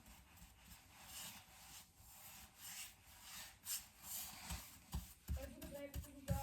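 Hard wax oil being rubbed into a wooden tabletop, in soft repeated strokes about twice a second, with a few low knocks near the end.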